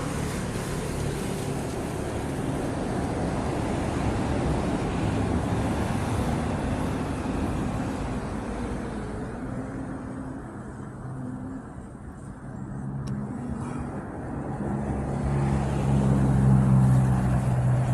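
Road traffic: motor vehicles passing, with a steady rush of noise and an engine hum that grows louder near the end.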